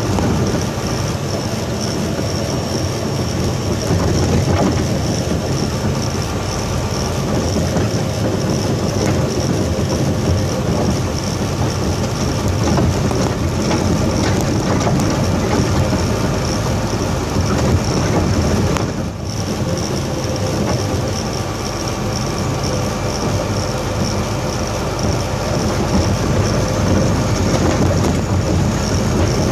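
Dump truck's diesel engine and road noise heard from inside the cab while driving, a steady loud drone with a brief lull about two-thirds of the way through.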